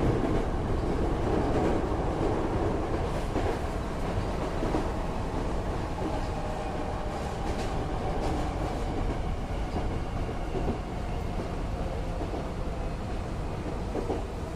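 Hankyu 8000-series renewed electric train (set 8008F) running, heard from inside the car: a steady rumble of wheels on rail with a few faint clicks over rail joints. A faint whine comes in about halfway through.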